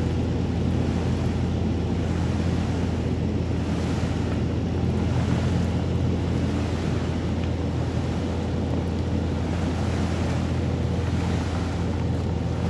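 The engine of a large machine running steadily, a constant low drone, as it hauls a fabric arena roof cover over its frame by long lines and pulleys. An even rushing noise lies underneath.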